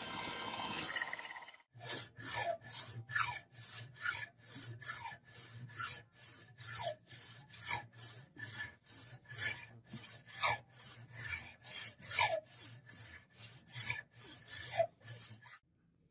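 Hand-abrasion rasping strokes on the antique meat chopper, evenly back and forth at about two and a half a second, some with a short squeak. A steady hiss comes before them and cuts off just under two seconds in.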